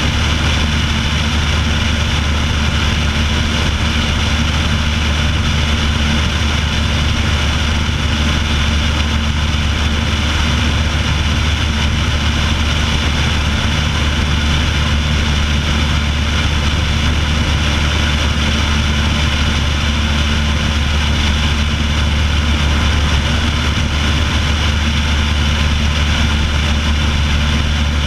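Piper Pacer's piston engine and propeller running steadily in flight, a constant low drone under airflow noise rushing past a camera mounted outside on the wing strut.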